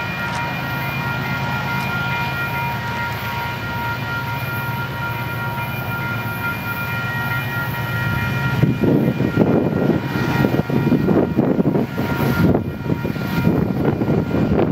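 Distant Union Pacific diesel freight locomotives droning, a low engine rumble with a steady high whine over it. From about nine seconds in, gusts of wind buffet the microphone and become the loudest sound.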